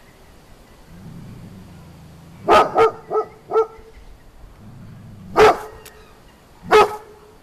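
A Groenendael Belgian shepherd growling low, then barking: four quick barks, then after a second growl two more single barks, agitated at the African wild dogs beyond the fence.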